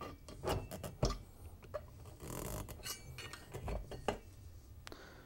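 Handling clatter as a Teflon end cap is eased off a finned metal ozone reaction chamber and set down: a series of light clicks and clinks, the loudest about a second in.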